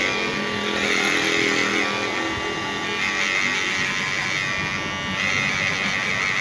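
Cordless KIKI hair clipper running with a steady buzz, its freshly sharpened stainless blades driven by the motor.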